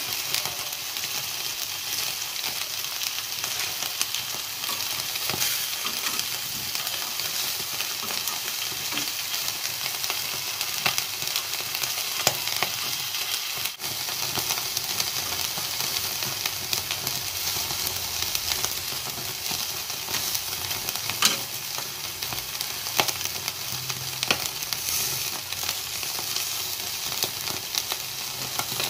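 Pieces of mackerel tuna coated in thick coconut-milk gulai sauce sizzling on a wire grill rack over the fire. It is a steady hiss with scattered pops and crackles.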